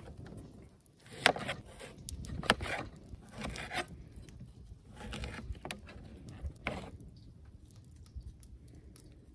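A kitchen knife cutting a lemon on a plastic cutting board: several sharp knocks of the blade meeting the board, with rubbing and scraping between them, growing quieter near the end.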